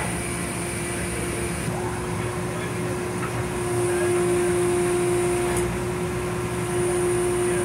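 Machinery running steadily: a low engine drone under one constant mid-pitched whine, with a few faint knocks.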